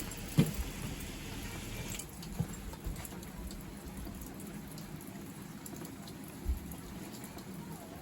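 Steady rain falling, with scattered drips. A few short knocks stand out, the loudest about half a second in, and there is a dull thump near the end.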